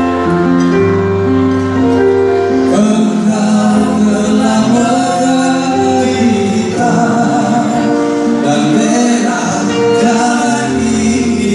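Live song through a PA: a man singing into a microphone over instrumental accompaniment, the voice coming in about three seconds in after held backing notes.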